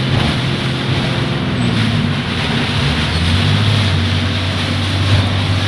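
Storm of heavy rain and strong wind, a loud steady rushing, with a low engine hum underneath that drops in pitch about three seconds in.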